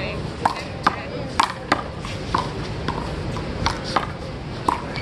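A one-wall handball rally: the rubber ball slapped by hand, smacking off the wall and bouncing on the court, giving about nine sharp slaps at uneven intervals.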